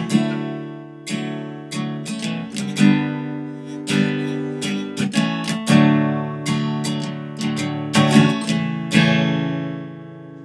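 Background music: acoustic guitar strumming chords, the last chord about nine seconds in ringing out and fading.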